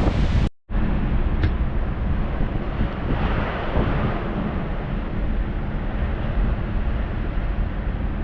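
Strong wind noise blowing on the microphone, a loud steady rush that cuts off abruptly about half a second in and then resumes with a faint low hum underneath.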